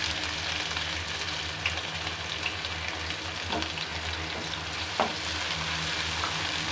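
Sliced onions sizzling in hot oil in an aluminium pan, stirred with a wooden spatula. A couple of light knocks sound partway through.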